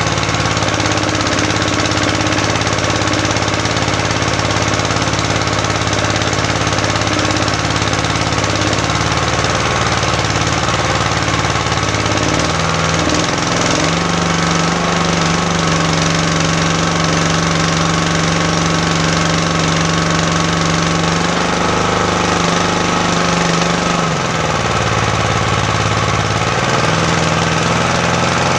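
Engine running under a power test: idling at first, revved up about halfway through and held at a higher speed for around ten seconds, then dropping back toward idle and rising again near the end.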